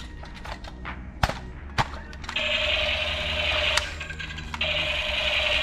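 Two sharp plastic clicks, then a battery-powered toy gun's buzzing firing sound in two bursts, about a second and a half and then a second long.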